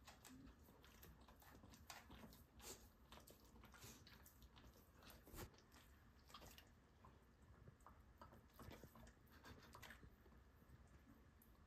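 Faint licking and lip-smacking of a golden retriever licking food off a metal spoon, a scatter of small wet clicks.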